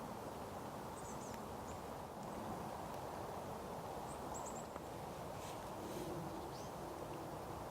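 Thin, high calls of small woodland birds around feeders, as short chirps at about a second in, near the middle and again about three quarters of the way through, with a few faint clicks. They sit over a steady rushing background noise.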